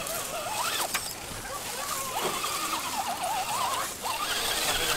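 Motor of a 1/10-scale RC rock-crawler truck whining, its pitch wavering up and down as the throttle is worked while it climbs through grass, with a sharp click about a second in.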